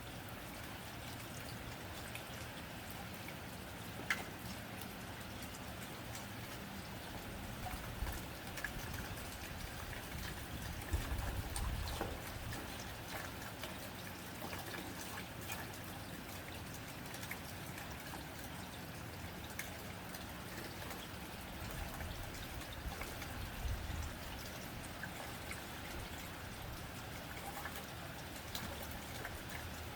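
Steady rain pattering on a tin roof, a constant hiss scattered with small drop ticks, with a sharper tick about four seconds in and a few brief low swells.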